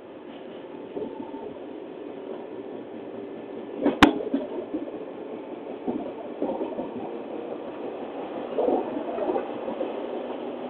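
113-series electric train running, heard through an open window of its MoHa 113 motor car: a steady rumble of wheels and motors that grows gradually louder. There is a sharp knock about four seconds in, then several clacks of wheels over rail joints and points.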